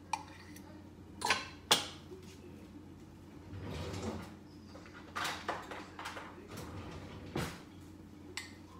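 Kitchen handling noises: two sharp knocks about a second and a half in, then scraping and rustling with several more knocks and clatters.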